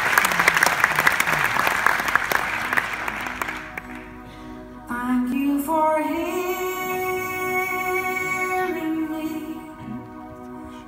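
Audience applause fading away over the first few seconds, then a woman's voice begins singing, rising into one long held note before falling away near the end.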